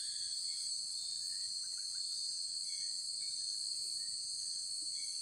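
Steady, high-pitched chorus of insects, such as crickets, trilling without a break.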